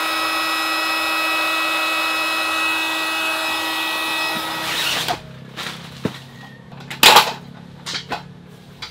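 Small handheld electric air pump running with a steady whine, stopping abruptly about five seconds in. After it, a few sharp knocks and clatters of wooden folding-table parts being handled, the loudest about seven seconds in.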